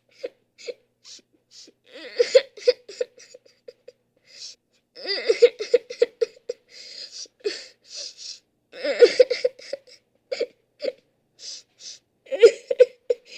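A person crying: choppy sobs broken by catching, gasping breaths, coming in repeated bouts with short pauses between.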